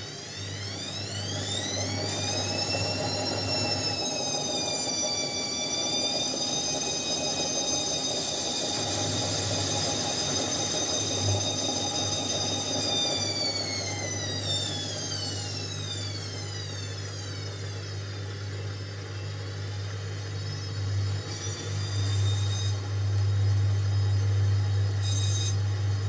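Indesit 71252 washing machine's motor whining: it rises in pitch over the first two seconds as the drum speeds up, holds steady for about ten seconds, then winds down over a few seconds. A low steady hum runs underneath, and a few brief whines come near the end.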